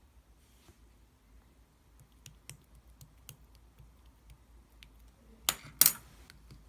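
Scattered light clicks and taps, then two sharp, much louder clacks about a third of a second apart near the end.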